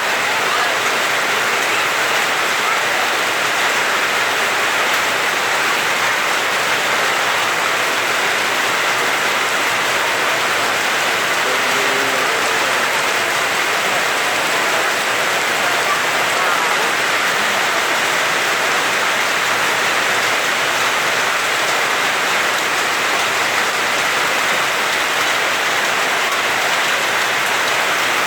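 Heavy rain falling steadily, a loud, even hiss of downpour on surfaces.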